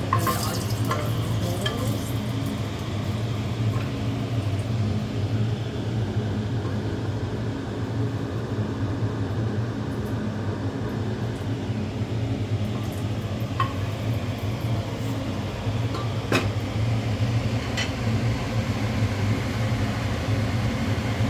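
Oil sizzling in a pan with whole spices, over the steady hum of a kitchen chimney hood fan, with a few sharp clicks of a utensil against the pan.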